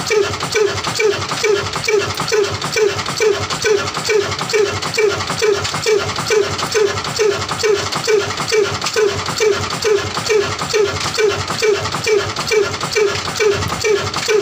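Old single-cylinder horizontal stationary diesel engine running steadily at slow speed, its heavy flywheel turning. It gives an even chug-chug beat of about two and a half beats a second.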